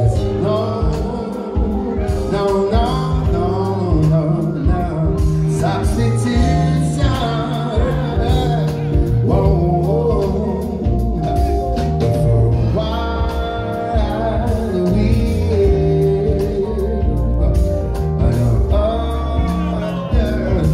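Live soul band: a male lead singer sings over electric guitar, keyboards and a drum kit, with a steady beat and a strong low end.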